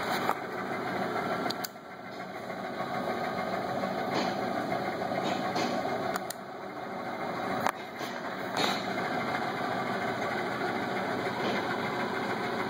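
Hardinge HC lathe running with a steady mechanical hum and occasional sharp clicks. The sound drops suddenly twice, about two seconds in and again near eight seconds, and builds back up each time.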